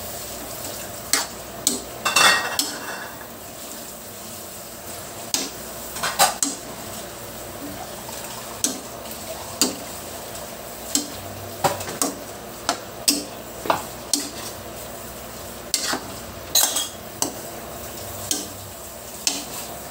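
Metal spatula scraping and knocking against an aluminium wok as chunks of chicken and pork are stirred and turned, with irregular clanks every second or so over a steady low sizzle.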